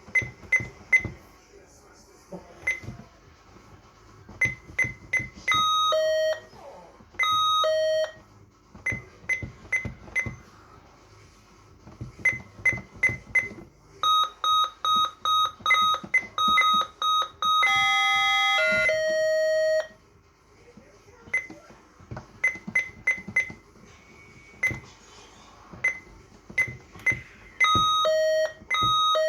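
Alarm panel keypad beeping at each button press while a new user code is keyed in: short high beeps, broken a few times by a lower two-note tone. About two-thirds through come a quick run of beeps and a longer low tone.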